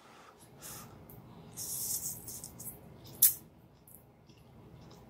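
Quiet mouth noises of a person eating yakisoba noodles: a faint slurp and chewing, with one short sharp click a little after three seconds in.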